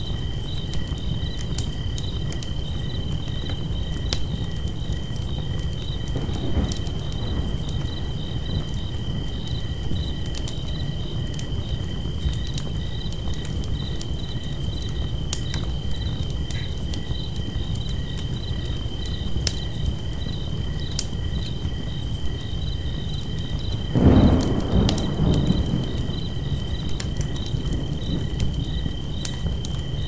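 Campfire crackling with scattered sharp pops over a low rumble, under a steady, high, pulsing trill of crickets. About three-quarters of the way through, a louder low rumble swells for a couple of seconds.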